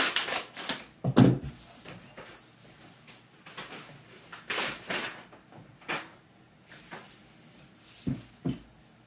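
Scissors snipping through a padded paper mailer, with crinkling paper and a sharp snap about a second in. Scattered rustles and light knocks follow as the package is handled.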